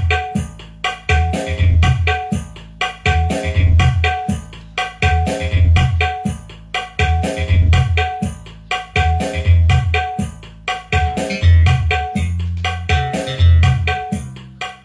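A song played from a phone through a dbx 224XL 4-way crossover, power amplifier and loudspeakers with subwoofers. It has a strong recurring bass beat, sharp percussion hits and a melody on top.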